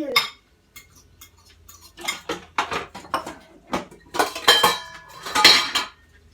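A fork beating eggs in a bowl, the metal tines clinking and scraping against the bowl in quick, irregular strokes. The strokes get louder and more frequent about two seconds in, and the hardest strikes set the bowl ringing briefly.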